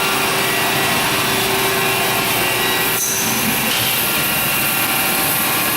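Cincinnati EC380 grinder running through a test grind, a steady machine hiss with a steady hum and whine. About three seconds in the sound shifts, with a brief high whine.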